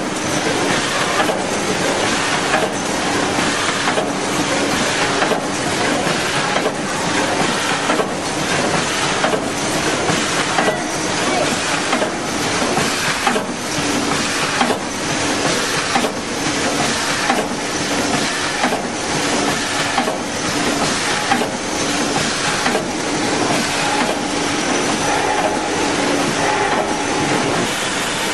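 Vertical form-fill-seal popcorn packing machine with its weigher running, a steady mechanical din with a regular clack about one and a half times a second.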